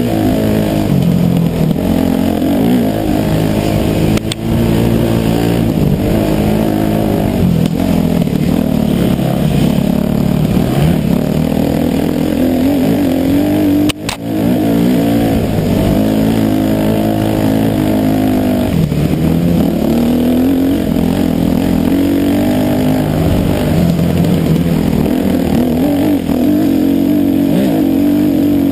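Dirt bike engine under hard riding, heard from the bike itself: the pitch climbs and drops again and again as the rider works the throttle through the gears. The engine note briefly dips twice.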